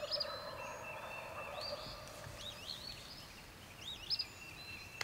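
A wild turkey gobbling, a rattling call in the first couple of seconds, with songbirds singing repeated high, arching notes throughout.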